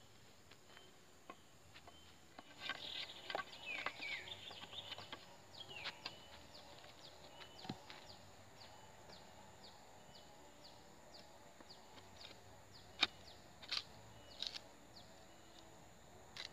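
Wooden handle being worked into a metal pipe socket: scraping and rubbing early on, then three sharp knocks of wood against metal about three-quarters through.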